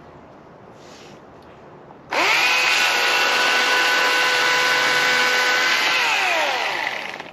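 Two-stroke chainsaw throttled up about two seconds in, rising quickly to a steady high pitch. It holds there for about four seconds, then the throttle is released and the pitch falls away near the end.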